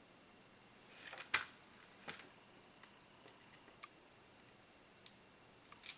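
Light clicks and taps of small metal and plastic RC car parts being handled while a shock absorber is fitted to the gearbox, the sharpest click about a second and a half in, then a few fainter ticks.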